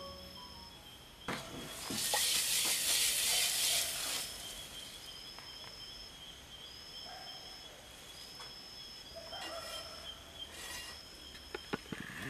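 Salt poured from a stone container into a clay pot of wheat flour: a hissing rush that starts about two seconds in and lasts about two seconds. A steady high-pitched tone with short repeated chirps runs underneath, and a few light knocks of clay pots come near the end.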